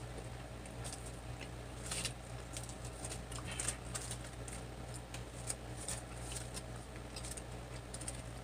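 Quiet eating sounds: scattered small clicks, smacks and crackles of chewing and of fingers handling fried chicken and a sugar biscuit, over a steady low electrical hum.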